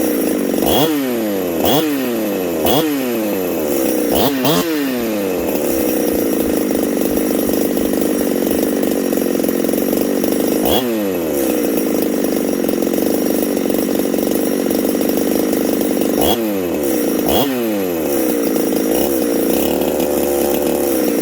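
Husqvarna 372XP two-stroke chainsaw, a freshly built modified saw, running and being blipped on the throttle about eight times, the revs falling back after each blip, with a steadier run between. Near the end the note wavers unevenly, and the saw still needs fine tuning.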